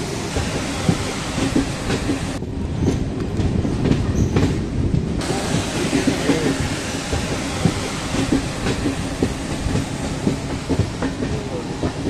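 Amaravati Express passenger train running, heard from on board: a steady rumble and rattle with the wheels clacking over the rail joints. About two and a half seconds in the sound turns duller for a few seconds.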